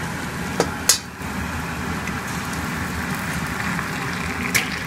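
Eggs, salami and onion frying in a Zwilling 18/10 stainless steel pan, a steady sizzle with two sharp clicks about a second in and another near the end.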